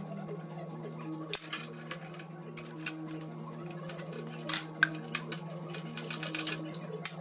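Background music with a repeating melody over a steady low drone. A handful of sharp metallic clinks and clatters of tools and engine parts fall at irregular moments, the loudest a little past the middle.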